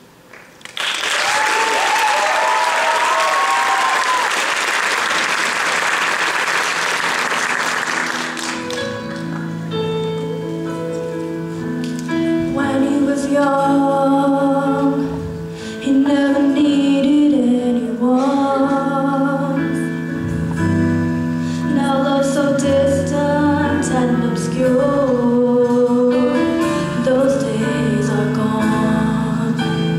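Audience applause and cheering with a few shrill whoops for about eight seconds after a choir number ends. Then piano notes start and singing begins, a new song carried through to the end.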